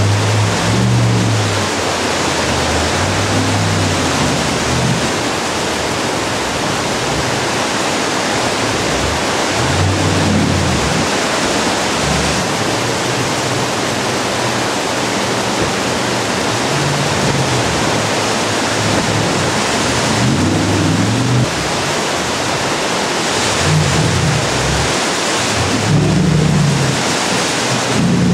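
Steady rush of whitewater rapids, with a jet boat's engine revving up and down at intervals beneath it.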